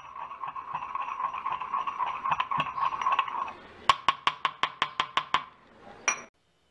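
A mortar-and-pestle sound effect. First a dense, rapid clatter over a steady ring, then about ten sharp, even strikes at roughly seven a second, and finally one bright ringing clink.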